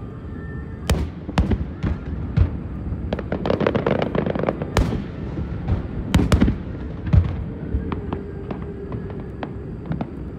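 Aerial firework shells bursting overhead: sharp booms at irregular intervals, with a quick run of crackling bangs about three to four seconds in.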